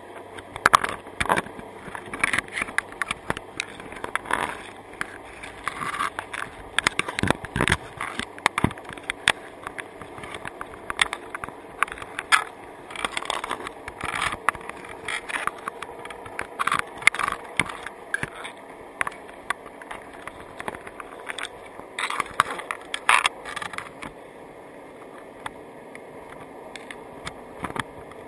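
Crabs' legs and shells clicking and scraping against an underwater camera housing and the wire mesh of a crab trap, heard underwater. The clicks and scrapes come irregularly and thin out near the end.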